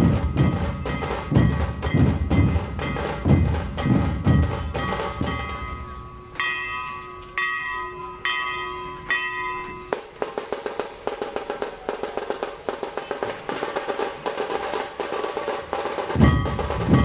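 Background music with a steady drum beat. About six seconds in the beat drops out for a few held chiming notes, then quick light ticking percussion, and the beat returns near the end.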